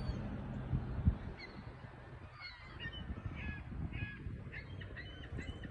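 A flock of geese honking: many short calls in quick succession, starting a little over two seconds in. There is a single thump about a second in.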